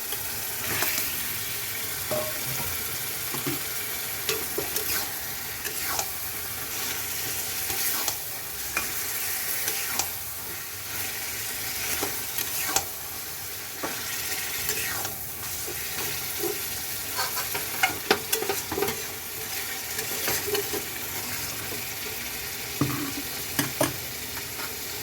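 Marinated chicken sizzling in a pan of tomato-onion masala while a spatula stirs and scrapes it, with scattered short clinks and scrapes against the pan over a steady frying hiss.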